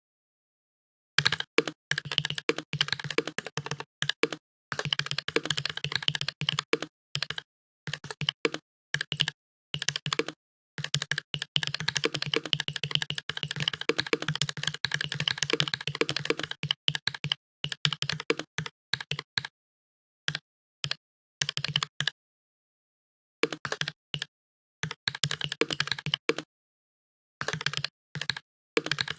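Computer keyboard being typed on fast, in runs of rapid key clicks broken by short pauses, starting about a second in.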